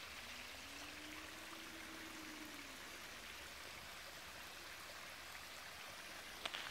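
A small woodland creek running faintly and steadily over rocks, with a faint low hum that rises and then falls over a couple of seconds near the start.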